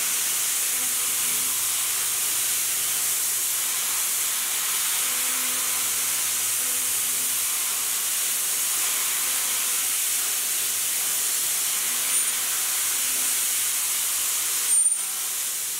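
Haas VM3 CNC mill dry-roughing aluminium with the coolant off: a steady high hiss, with faint low tones from the spindle and cut coming and going. A brief sharp sound comes near the end.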